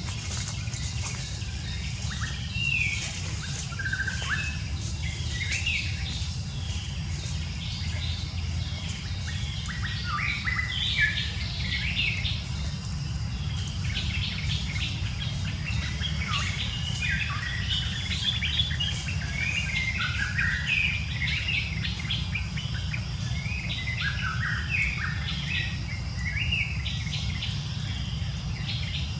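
Many short, high chirping and whistled calls, some rising or falling in pitch, coming thick and fast from about ten seconds in, over a steady low rumble.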